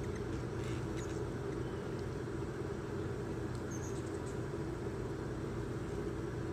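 Steady low outdoor background rumble with a few faint, brief high chirps, one about four seconds in.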